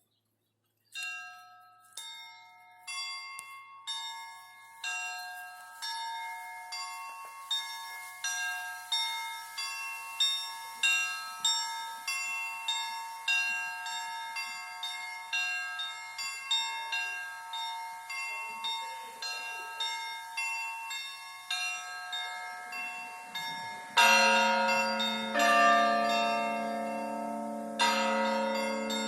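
Church bells ringing. Starting about a second in, small high-pitched bells are struck one at a time, quickening to about two strokes a second in a repeating pattern. Near the end a large, deep bell joins with a louder stroke, struck twice.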